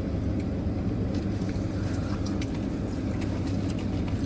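Steady low rumble of a car heard from inside the cabin, with a few faint ticks over it.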